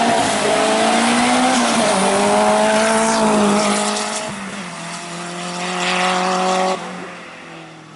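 Renault 5 hillclimb car's engine at full throttle as it passes and pulls away. The pitch steps down at two upshifts, about two and four seconds in, and climbs between them. The sound drops off suddenly near the end.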